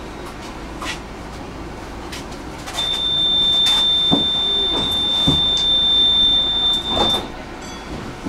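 Tram door warning signal: a single steady high tone, starting about three seconds in and held for roughly four seconds before it cuts off. A few knocks of the doors moving and shutting sound during it.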